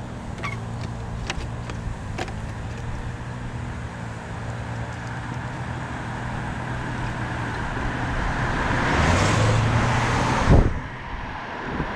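Electric mobility scooter driving along, its motor giving a steady low hum with a few light clicks and rattles. A car passes close by on the road, growing louder over several seconds and dropping away suddenly near the end.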